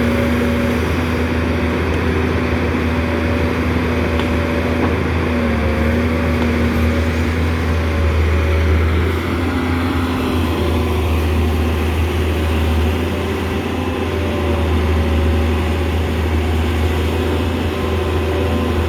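Large Doosan excavator running steadily under load: a deep diesel engine hum with a steady hydraulic whine that dips in pitch now and then.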